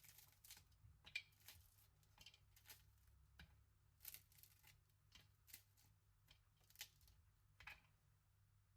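Faint short rustling and scraping strokes, about one or two a second and irregular, from hands handling food and utensils during food preparation.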